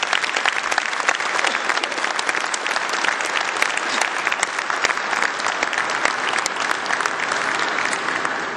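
A large audience applauding, many hands clapping together, dying away near the end.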